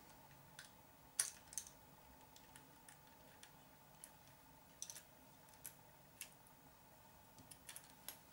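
Scattered small clicks and taps of plastic and metal parts and hand tools being handled while assembling an RC car's suspension. The sharpest click comes about a second in, and lighter ones follow every second or so.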